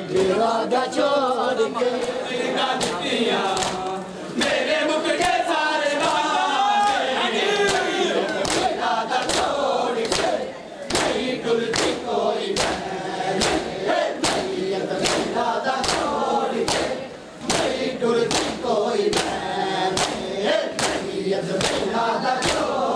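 A group of men chanting a noha in chorus while beating their chests in matam, the open-hand slaps landing in a steady rhythm of about two a second and growing sharper from about eight seconds in.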